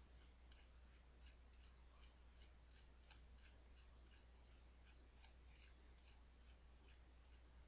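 Near silence: faint room tone with a steady low hum and faint, evenly spaced small ticks, about three a second.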